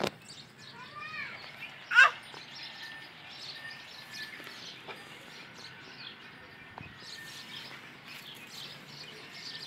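Chicks and chickens peeping and chirping, with short high chirps throughout and one loud call falling steeply in pitch about two seconds in.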